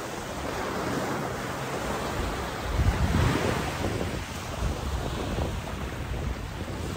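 Small surf breaking and washing up a sandy beach, a continuous rushing wash with wind buffeting the microphone. It swells loudest about three seconds in.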